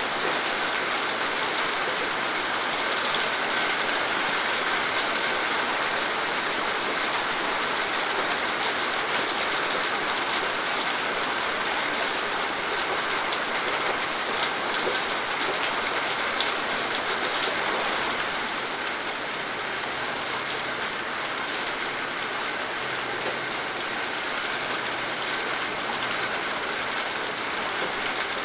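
Steady rain falling, with many small drops pattering on surfaces; it eases slightly about two-thirds of the way through.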